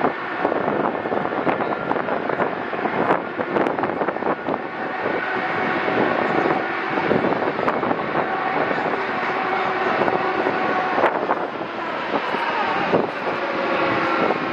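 Four-engined Boeing 747 jet airliner on final approach, its engines making a steady rushing jet noise with faint whining tones that come through more clearly over the second half.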